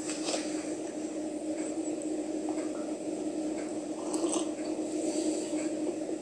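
Open phone line while the call is being transferred, heard through the phone's speaker: a steady hum with faint hiss and background noise.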